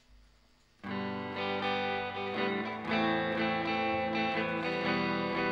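A live band's song starting a little under a second in: electric guitar chords ringing out, a step louder about three seconds in.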